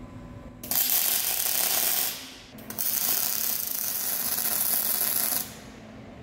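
A loud mechanical rattle with a hiss, in two bursts that start and stop abruptly: a short one of about a second and a half beginning just under a second in, then a longer one of nearly three seconds.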